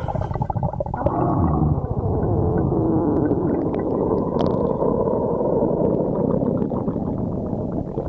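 A person's stomach growling: a pitched growl that turns about a second in into a long, continuous gurgling rumble.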